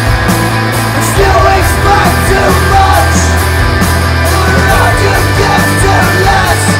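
Loud rock music from a band: a steady heavy bass and drums, with cymbals keeping a regular beat.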